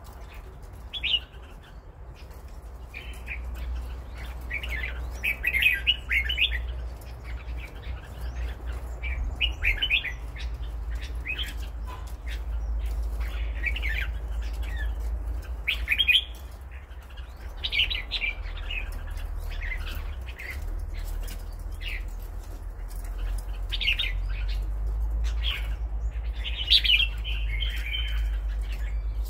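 Red-whiskered bulbul singing: short, bright warbled phrases, one every second or two, over a steady low hum.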